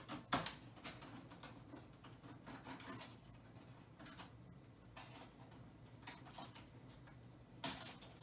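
Faint, irregular small metal clicks and ticks as screws are worked out of an Amiga 500's metal shield by the expansion port, with a few sharper clicks just after the start and near the end.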